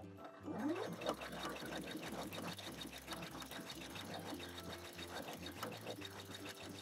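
Home sewing machine running at a steady speed, its needle stitching a straight seam through two layers of fabric with a fast, even ticking.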